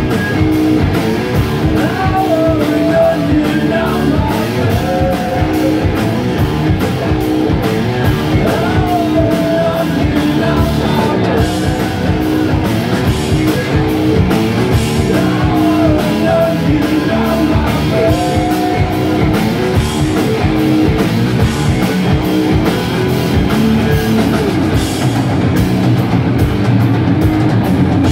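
Live rock band playing: electric guitars, bass guitar and a drum kit keeping a steady beat, with a melody line that bends up and down over the top.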